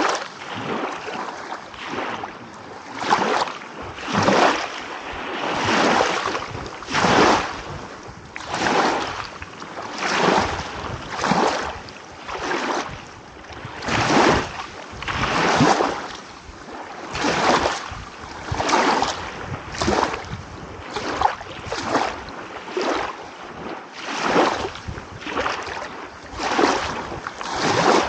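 Small ocean waves washing in and breaking one after another, a swell of splashing water noise every second or so.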